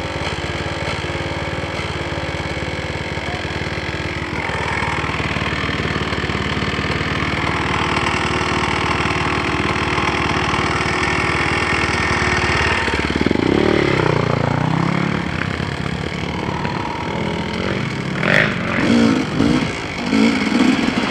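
KTM 250 EXC two-stroke dirt bike engine running and revving, the pitch rising and falling with the throttle. A few knocks and short surges near the end.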